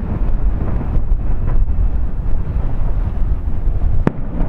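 Fireworks display heard from a distance: a continuous low rumble of shell bursts and their echoes, with wind buffeting the microphone, and one sharp crack about four seconds in.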